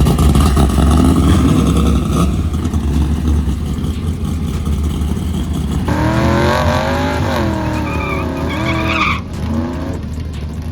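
A car being driven hard: the engine runs at high revs, and about six seconds in the tyres squeal in a wavering pitch that cuts off abruptly after about three seconds.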